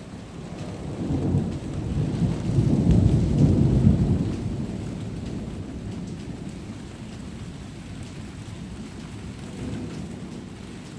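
Rolling thunder: a deep rumble that builds about a second in, peaks a few seconds later, then slowly fades.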